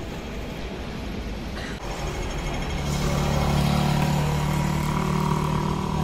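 Road traffic, with a motor vehicle's engine humming steadily and growing louder about three seconds in.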